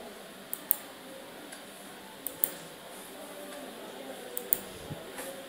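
Quiet background hiss broken by three pairs of short, sharp clicks, each pair about two seconds after the last.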